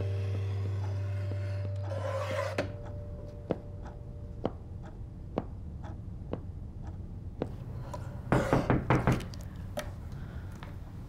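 A low hum cuts off about two and a half seconds in. Sharp ticks follow about once a second, then a quick run of five or six loud knocks on a glass shop door about eight seconds in.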